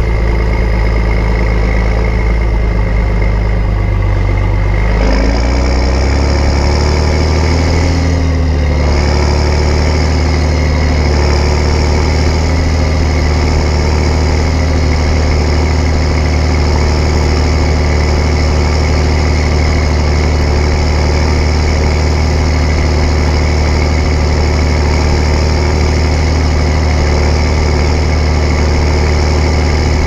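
John Deere 7810's 8.1-litre six-cylinder common-rail PowerTech diesel running, heard close to its upright exhaust stack. About five seconds in the revs rise, dip briefly, and then hold steady at the higher speed.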